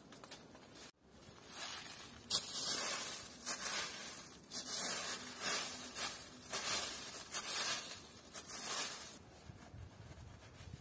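A series of irregular rustling, scraping strokes, each lasting between a fraction of a second and about a second.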